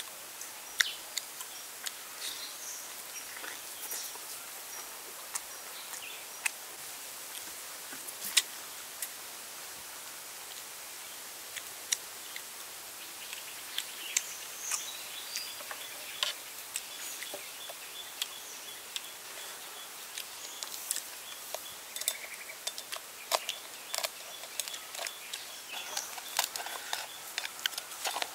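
Chewing and lip-smacking while eating roasted duck meat by hand: scattered short wet clicks. Behind it runs a steady outdoor hiss with occasional bird chirps.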